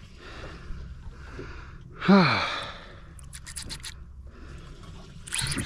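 A man lets out a wordless, falling groan of effort while reeling a small tuna up to the boat, followed a second later by a quick run of sharp clicks, over a steady background of sea and wind.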